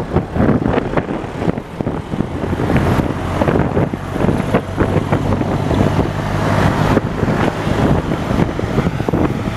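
A moving vehicle running, with wind buffeting the microphone in short gusts over a steady low engine hum.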